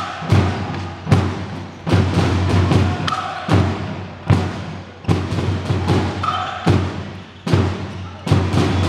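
A drum beaten in a steady beat, a little more than one stroke a second, each stroke ringing on in the hall.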